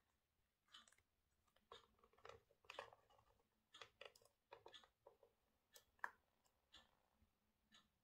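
A pet parrot's quiet chatter: a string of soft clicks and short mutters, irregular and faint, with one sharper click about six seconds in.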